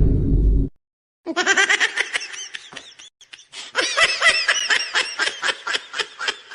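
A loud, deep sound cuts off within the first second. After a short silence comes a high-pitched laughter sound effect in rapid pulses, about four or five a second, going on for some six seconds.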